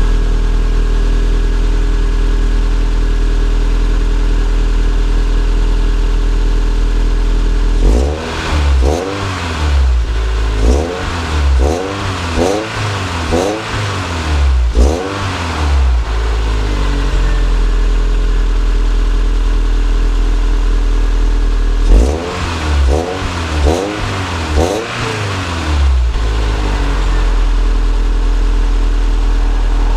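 Toyota SW20 MR2's four-cylinder engine idling steadily, then blipped in a quick string of about seven revs, each rising and falling, settling back to idle, then blipped about four times more. The exhaust leak at the catalytic converter has just been repaired.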